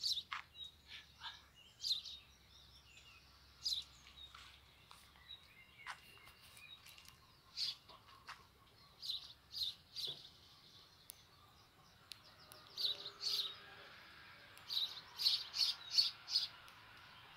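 Small birds chirping: short, sharp, repeated chirps in scattered groups, coming thick and fast in the last few seconds.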